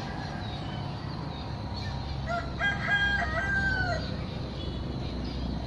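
A rooster crowing once, about two seconds in: a few short notes, then a longer held note that drops at the end.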